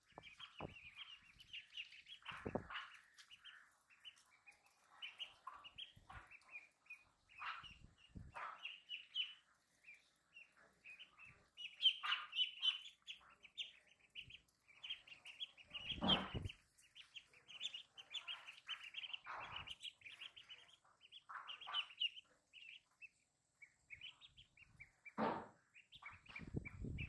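A flock of ducklings peeping without pause in short, high chirps, with a few dull thumps now and then.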